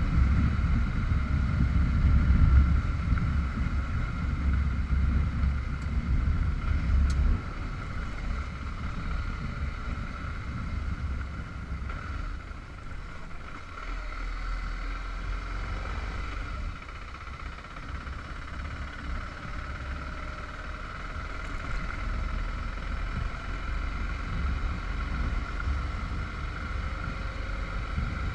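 Motorcycle engine running under way, with a steady low rumble and wind noise on the microphone; the sound drops to a lower level about seven seconds in.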